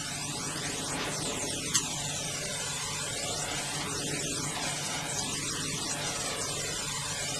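Steady rushing noise over a low hum, its tone sweeping slowly up and down like a jet flanging.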